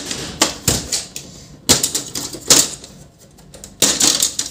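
Plastic clicks, snaps and rattles of an HP LaserJet Pro M501 printer's rear cover panel being unclipped and pulled off. The clicks come in several short clusters: at the start, about half a second in, around two seconds in, and near the end.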